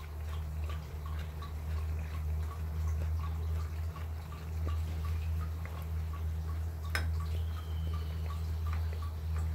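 Kitchen background: a steady low hum with light, even ticking about four times a second, and one sharp click about seven seconds in.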